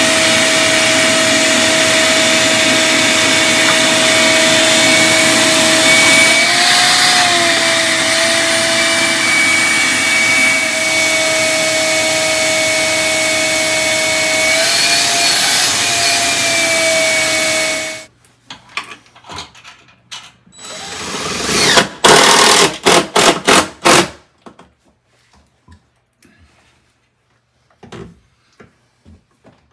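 Shop vacuum running with a steady whine, sucking up aluminium drill shavings from the floor; its pitch wavers twice, and it shuts off about two-thirds of the way through. A few seconds later there are several short loud bursts from a cordless drill driving screws.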